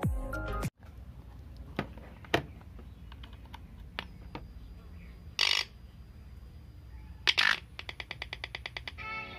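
Music cuts off abruptly under a second in. Then come scattered clicks and handling noise over a low steady hum, as a USB power lead is plugged into a power bank and a phone is handled. There are two short bursts of noise, and near the end a quick run of even ticks.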